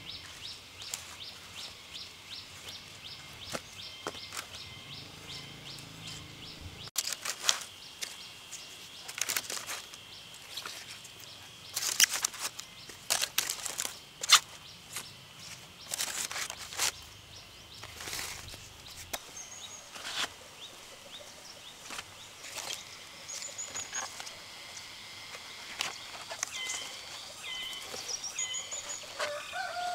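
Freshly cut bamboo shoots being handled and packed into a woven plastic basket: irregular knocks and rustles of the husked shoots, loudest around the middle. Under it runs a steady high whine, with a few short bird chirps in the second half.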